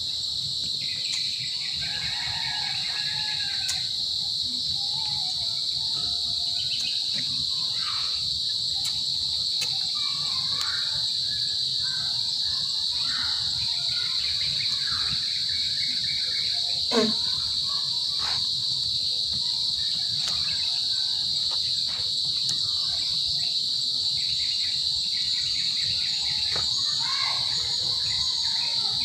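Steady, high-pitched insect chorus, with scattered short bird calls and one brief sharp call that falls in pitch about halfway through.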